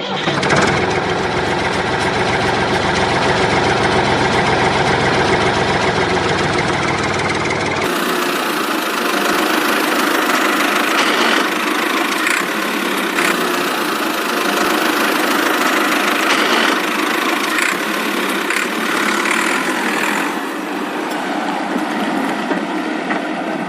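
Homemade tractor-mounted drilling rig running steadily, an engine-like mechanical drone. About eight seconds in the sound changes abruptly and loses its deepest tones, and a few light knocks come through after that.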